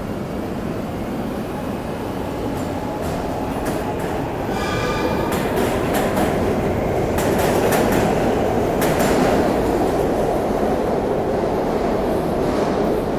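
SEPTA Market-Frankford Line subway train (Kawasaki M-4 cars) pulling out of the platform. A steady rumble builds from about four seconds in and peaks midway through, with a brief high squeal as it gets moving and a run of wheel clacks over the rail joints.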